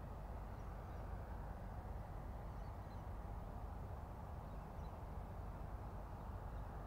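Steady low rumble of wind on the microphone, with a few faint high chirps scattered through it.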